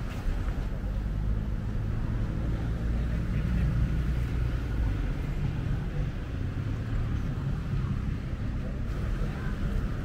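Steady low engine rumble, with faint voices over it.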